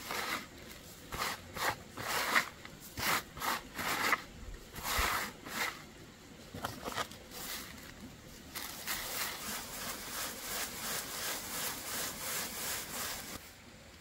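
Hands rubbing and scraping coarsely ground corn across a woven bamboo tray in irregular strokes. From about eight and a half seconds in, a bamboo sieve full of the grain is shaken in a quick even rhythm, about three strokes a second, the grain rasping over the weave, until it stops shortly before the end.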